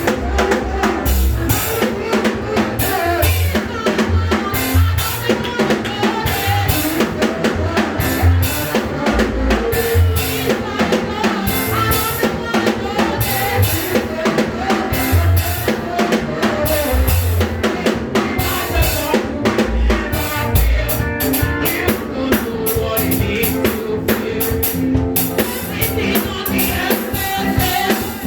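Music led by a drum kit, with bass drum and snare or rimshot hits keeping a beat under other instruments.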